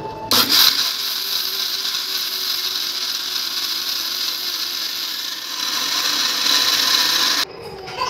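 Electric kitchen grinder running steadily, grinding soaked ragi, urad dal and rice into idli batter. It starts about a third of a second in and cuts off suddenly near the end.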